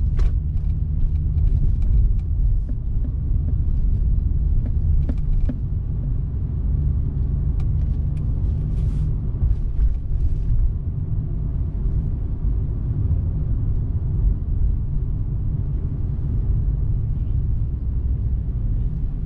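Steady low rumble of a car being driven, heard from inside the cabin: engine and road noise. A few faint light ticks come through at the start, about five seconds in, and again around eight to ten seconds in.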